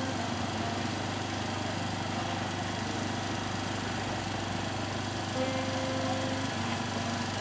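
A small engine running steadily, an even low drone, with a faint extra tone joining about five and a half seconds in.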